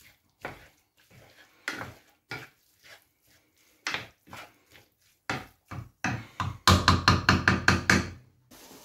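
Wooden spatula stirring minced meat and chopped onions in a frying pan: separate scrapes and knocks against the pan, then near the end a quicker, louder run of strokes, about six a second.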